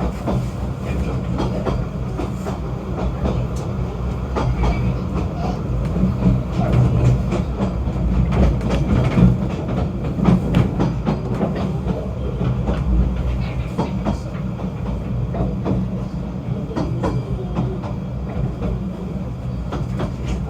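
Snowdon Mountain Railway rack train running: a steady low drone with frequent irregular clicks and knocks from the wheels and carriage, a little louder in the middle.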